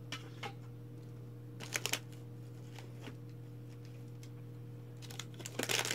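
Hands rummaging on a shelf with a few light taps and rustles, then a plastic food packet crinkling loudly near the end as it is pulled out, over a steady low electrical hum.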